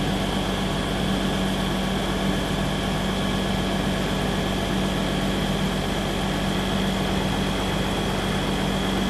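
Diesel engine of a railway track maintenance machine running steadily at close range, a constant low drone with a steady high whine over it.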